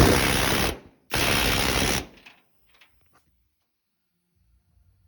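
Air hammer (thumper) fitted with a screwdriver bit, hammering in rapid-fire bursts: one cutting off just under a second in, a second of about a second, then a few light clicks. The hammering shocks rusted door-hinge screws loose.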